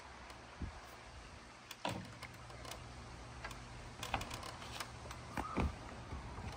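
Scattered faint clicks and knocks from the metal hooks and swivels of a ninja line's hanging grips as they are grabbed and swung on.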